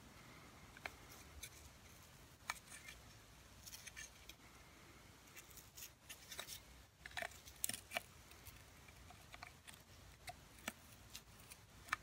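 Faint, irregular clicks and short scrapes of a flat metal blade prying at the plastic end cap and insert of a Bissell PowerForce vacuum brush roll. The cap's plastic has fused onto the insert from friction, locking the roller.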